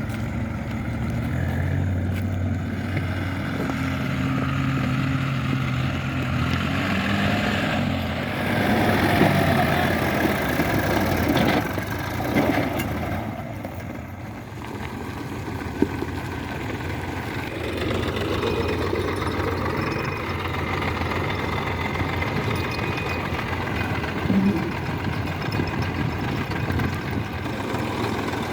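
Diesel engines of a JCB 3DX backhoe loader and farm tractors running, the engine note steady at first, then rising and falling as the machines are worked, louder about a third of the way in.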